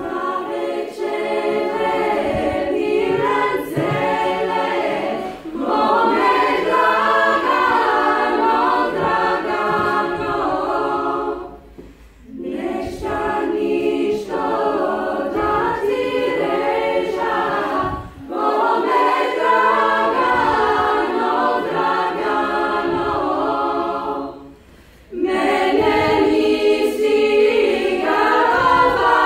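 Women's folk choir singing a Bulgarian folk song a cappella in several voices, in long phrases with brief breaks for breath between them.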